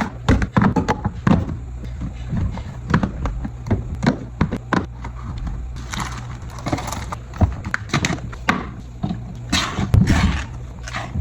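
Irregular knocks and clatter of groceries and containers being handled and set down, with rustling of packaging about six seconds in and again near the end.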